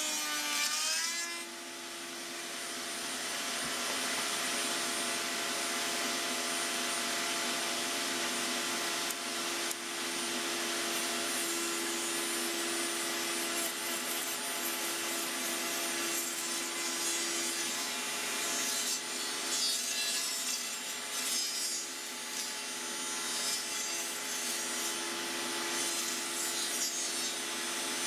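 A table-mounted router running at steady speed as the bit cuts a profile along the edges of door rails and stiles, a constant motor whine under a rough wood-cutting noise. The pitch dips briefly about a second in, then holds steady.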